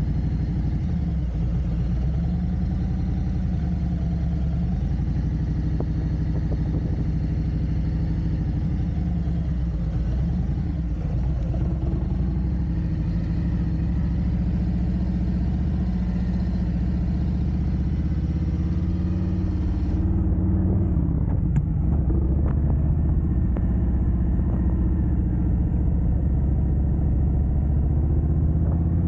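Harley-Davidson Road Glide Special's Milwaukee-Eight 114 V-twin running under way as the bike is ridden, a steady low rumble that gets a little louder about two-thirds of the way through.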